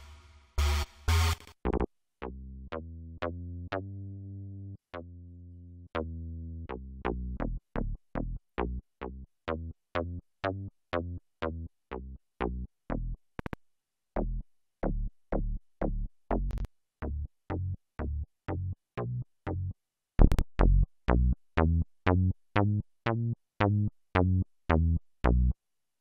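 Little-K software synthesizer playing its 'BS - Elastic' bass preset: low bass notes, a few held ones early on, then a steady run of short, plucky repeated notes with a sharp click at the start of each. A brighter, fuller sound plays for the first two seconds.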